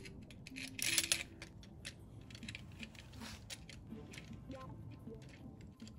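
Light metallic clicks and clinks as a fuel injector installation tool is handled and fitted onto a fuel injector in the engine's cylinder head, with a brief rustle about a second in.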